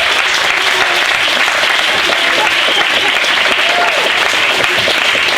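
Theatre audience applauding steadily, with a few voices calling out under the clapping.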